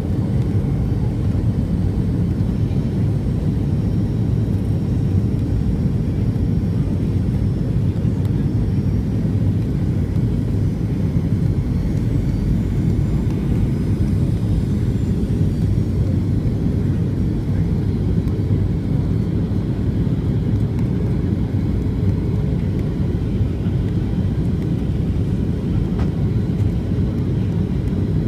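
Boeing 737-700's CFM56-7B jet engines and airflow heard inside the cabin in flight: a steady low rush with a faint high whine over it.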